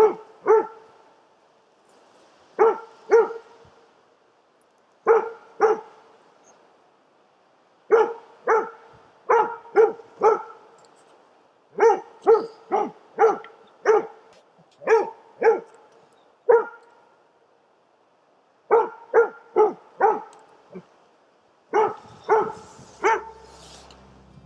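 A young elkhound barking at a bull moose through a wire fence: sharp barks in quick runs of one to four, with short pauses between runs. This is the bay a moose dog gives to hold a moose. Faint music starts right at the end.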